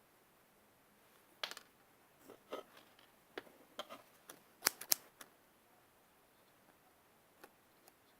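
Scissors snipping: a run of short, sharp clicks and cuts, with the two loudest close together a little before the middle, then two faint ticks near the end.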